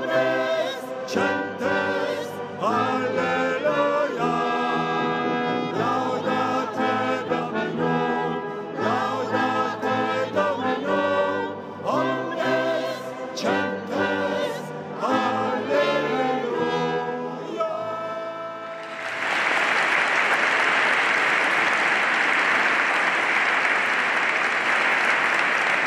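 A choir with brass plays a festive piece. About nineteen seconds in the music ends and a large congregation breaks into steady applause.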